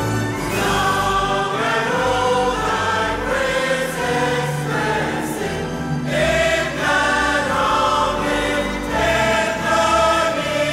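Large choir singing in held chords, with bass accompaniment underneath.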